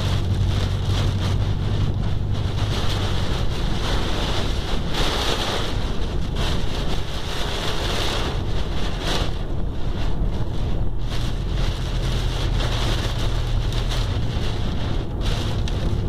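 Steady rushing noise inside a moving car's cabin in a heavy downpour: rain beating on the windshield and tyres on the wet road, over a low road drone.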